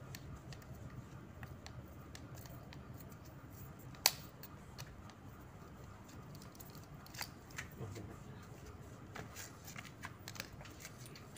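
Faint scattered clicks and scrapes of a fence being painted by hand with a paintbrush, with one sharp click about four seconds in.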